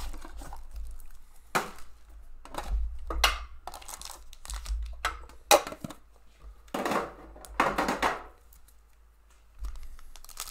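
Trading cards and their packaging handled on a table mat: a series of sharp clicks and taps as cards are squared up and set down, then two brief plastic rustles about seven and eight seconds in, and more crinkling right at the end.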